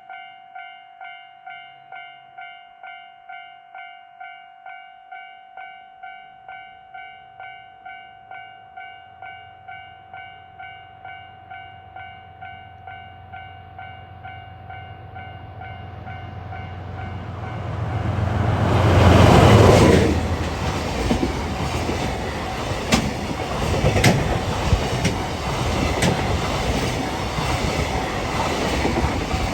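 Level-crossing warning bell ringing about twice a second as a train approaches. The train's rumble swells to a peak as it passes, then gives way to the clatter of wheels over rail joints, with the bell buried under it.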